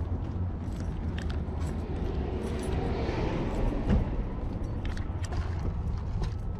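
A car running, heard from inside: a steady low engine and road hum, with small clicks and a short thump about four seconds in.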